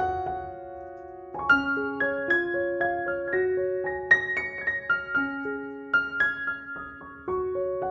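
Background music: a solo piano plays a slow melody, each note struck and left to ring.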